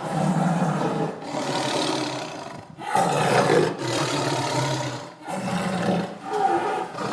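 A tiger roaring: three long roars, broken by short pauses about a third and two-thirds of the way through.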